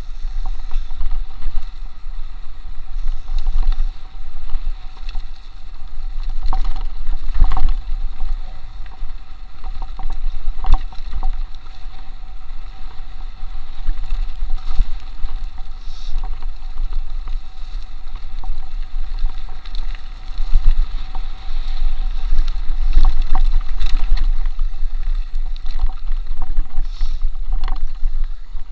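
Mountain bike descending a rough dirt trail at speed: heavy wind rumble on the chest-mounted camera's microphone, with the bike rattling and knocking sharply over bumps every few seconds.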